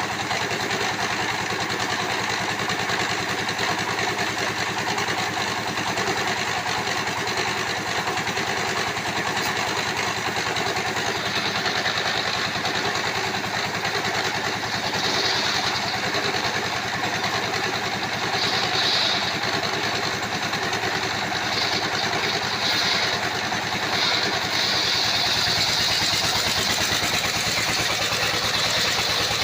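Engine-driven circular sawmill running steadily. About halfway through a higher-pitched sound starts coming and going, and it holds steady over the last few seconds.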